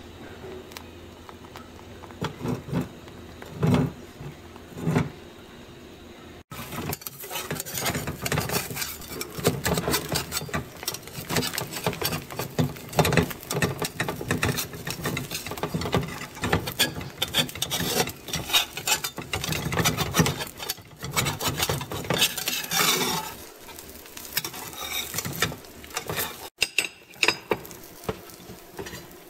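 Thin sheet of beaten egg frying in oil in a pan, crackling and sizzling densely from about a quarter of the way in and thinning out near the end. A few single knocks come before the crackling starts, and there are scattered clicks of the pan and spatula near the end.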